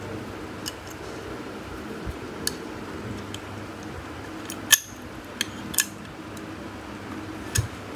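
Small metallic clicks and taps of a screwdriver against the steel parts of a hard drive's head actuator as it is unscrewed and prised apart, with one sharper metal clack about halfway through, over a faint steady hum.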